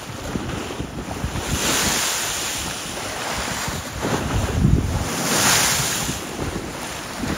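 Lake Michigan waves washing and breaking, swelling twice, with wind buffeting the microphone.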